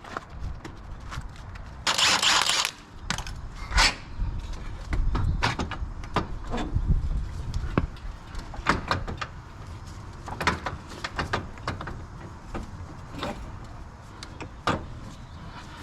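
Scattered clicks, clinks and knocks of hand tools and metal parts being handled while working on a UTV drive axle, with a short hiss about two seconds in.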